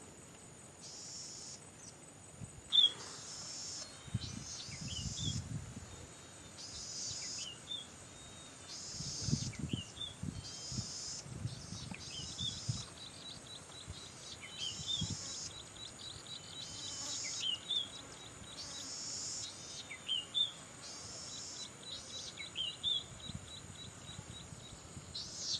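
Golden-headed cisticola singing: a short buzz followed by one or two sharp falling notes, repeated about every two seconds, over a steady high insect whine.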